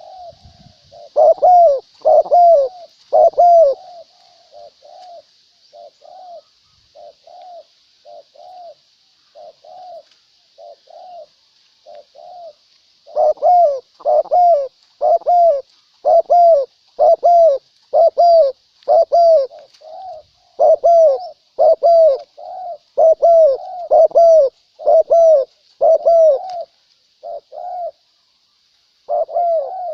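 Spotted doves cooing over and over in short repeated notes, some soft and some loud, with the louder coos coming in runs near the start and again from about 13 seconds on. A faint high chirping sits behind them.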